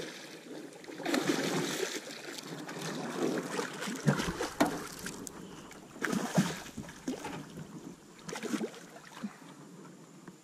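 A big hooked bowfin thrashing at the surface beside a boat, splashing water in uneven bursts, with a few sharp knocks in the middle.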